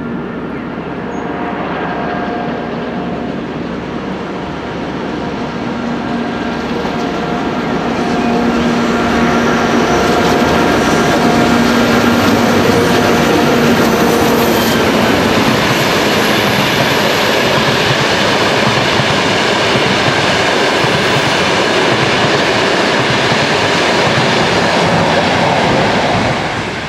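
Class 234 Soviet-built diesel locomotive with its V16 diesel engine approaching with a steady drone, then passing close at speed hauling a long train of passenger coaches. The sound is a loud steady rumble of wheels on the rails that fades near the end.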